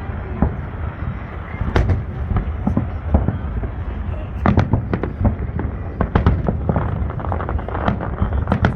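Fireworks going off in rapid, overlapping bangs and crackles over a steady low rumble. The bangs come thicker from about halfway through.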